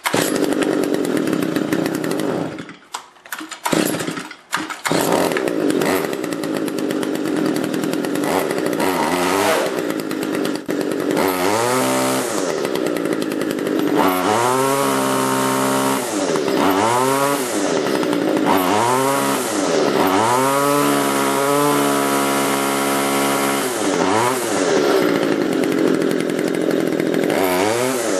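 STIHL FS55R string trimmer's small two-stroke engine, pull-started with the spark arrester screen removed from its muffler. It catches at once and falters twice in the first few seconds, then settles and is revved up and down about seven times, once held at high revs. It now accelerates cleanly instead of bogging down, showing that the clogged spark arrester was the fault.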